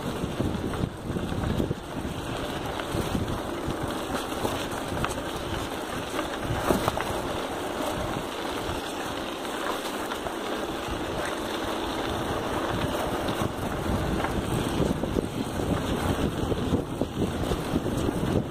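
Wind buffeting the microphone while a bicycle rolls along a dirt trail, with a steady rough rumble and scattered small knocks from the bike over the ground.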